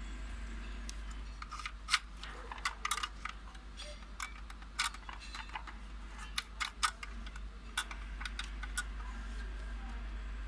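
Irregular sharp clicks and light knocks of hard plastic parts being handled and set down while a cordless circular saw and its case are unpacked, over a steady low hum.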